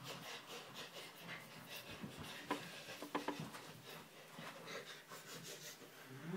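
Husky puppy play-wrestling with a hand on a rug: faint scuffling with scattered small clicks and taps, and the puppy's breathing.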